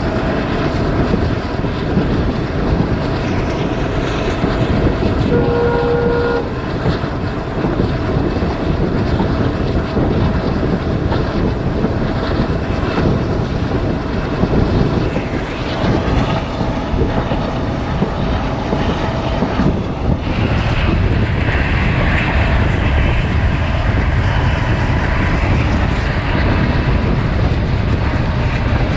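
Diesel-hauled passenger train running, heard from on board: a steady rumble of wheels on rail with rushing air. A short horn blast sounds about six seconds in, and the noise grows fuller about twenty seconds in.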